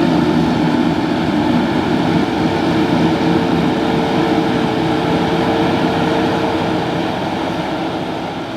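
Kubota M7-172 tractor running with a pull-type New Holland FP230 forage harvester chopping corn: a steady machine drone with a faint held tone through the middle, fading out near the end.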